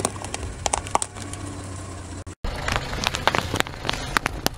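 Objects crushed under a slowly rolling car tyre over a low engine hum: a few snaps at first, then, after an abrupt cut about two and a half seconds in, a dense run of crackles and snaps as plastic cups split under the wheel.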